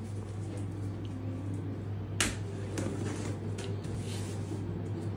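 Cardboard shipping box being handled, with one sharp tap or click about two seconds in and a few lighter knocks after it, over a steady low hum.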